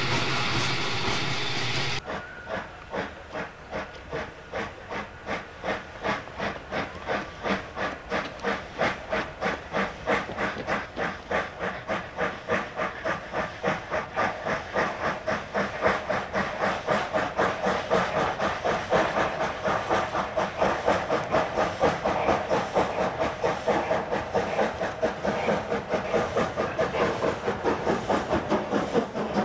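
Music stops about two seconds in, giving way to a steam locomotive working hard: a steady rhythm of exhaust chuffs with steam hissing, growing louder as it pulls away.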